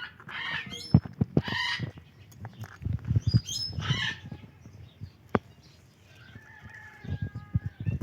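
A parrot giving short squawky calls three times in the first half, among scattered soft taps and knocks as it handles a guava, then a thin held whistle-like note near the end.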